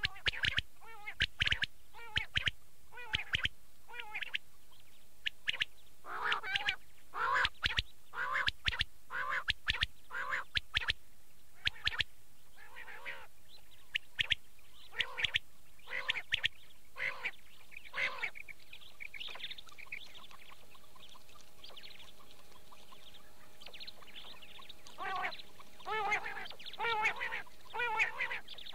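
Quail calling: many short, nasal calls in quick succession. They thin out to a brief lull past the middle, then come thick and fast again near the end.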